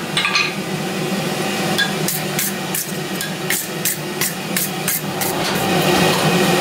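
Hand wire brush scrubbed back and forth over red-hot steel on the anvil, about three quick scratchy strokes a second for a few seconds, brushing off forge scale. A steady low hum runs underneath.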